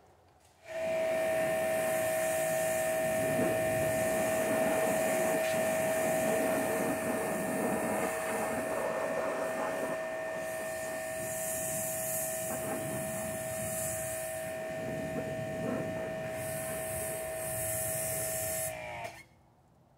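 A motor-driven machine runs with a steady whine over a rushing hiss. It switches on about a second in and shuts off about a second before the end.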